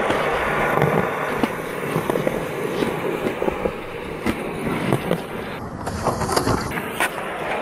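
Skateboard wheels rolling over pavement, a steady rumble with small clicks and knocks from the board, then sharper clacks near the end as the board is popped for a trick.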